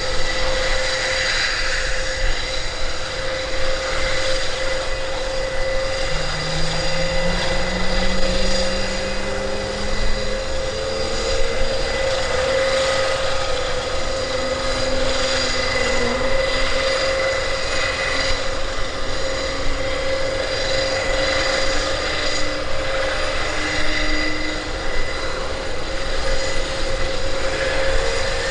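Airbus A400M's Europrop TP400 turboprop engines during start-up: a steady high turbine whine, with a lower tone rising in pitch from about six seconds in to about sixteen seconds in as an engine spools up.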